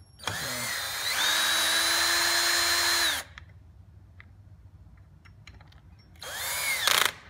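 Ridgid cordless drill/driver with a Torx 27 bit driving screws into an aluminum plate. The motor whines up to speed and runs steadily for about three seconds, then stops. It runs again briefly near the end, rising and falling in pitch.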